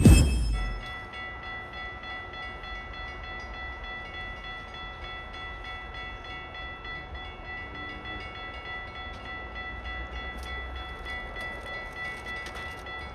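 A loud sudden thump, then a train horn sounding a chord of several steady notes, held on without a break, over a low rumble of rail traffic.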